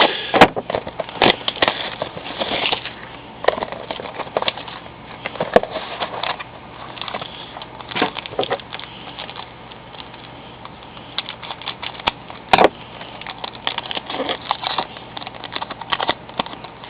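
A trading card pack being torn open and its cards handled: crinkling wrapper, with irregular rustles and sharp snaps and clicks.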